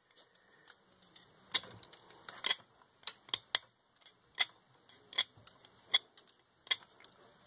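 A hand cutting tool snipping a small part shorter, a run of sharp snips a little under one a second.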